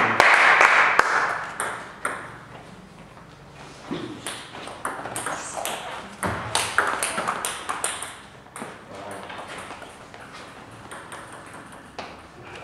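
Table tennis ball clicking back and forth off bats and table in a doubles rally, with a quick run of sharp hits between about four and eight seconds in. The opening two seconds hold a loud rush of noise.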